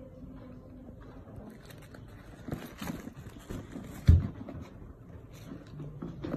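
A leather backpack being handled and turned over: rustling and scuffing, then one dull thump about four seconds in as it is dropped back onto the table.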